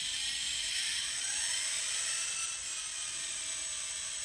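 Sound decoder's simulated GP38-2 diesel prime mover starting up, played through the model locomotive's tiny speaker: a thin, steady engine whir that winds up in pitch about a second in, then settles into a steady idle.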